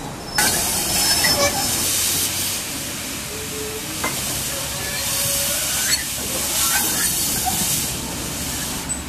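Small industrial saddle tank steam locomotive hissing steam in repeated surges from low at its front, from the cylinders, as it moves slowly with goods wagons, with a few short knocks.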